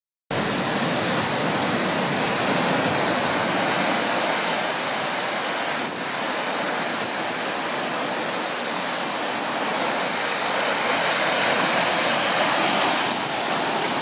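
Ocean surf breaking and foaming over a rocky, kelp-covered shore: a steady rush of churning water that swells a little near the end.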